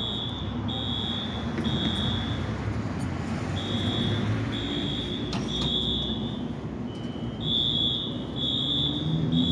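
Fire alarm sounder beeping a high tone in repeating groups of three, with a pause after each group: the temporal-three evacuation pattern. Under it runs a steady low background hum.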